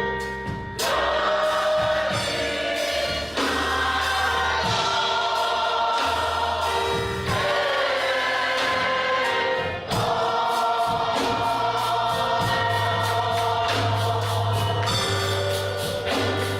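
Gospel music: a choir singing held notes over a band with a steady bass line and drums.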